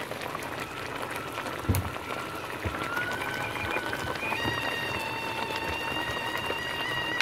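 A pot of curry bubbling at a simmer. There is a thump about a second and a half in, and a steady high tone that becomes fuller from about four seconds in.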